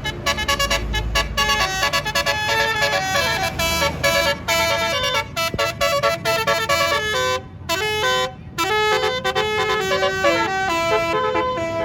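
Tour bus's basuri telolet horn playing a tune: a rapid string of short horn notes stepping up and down in pitch, with two brief breaks near the end.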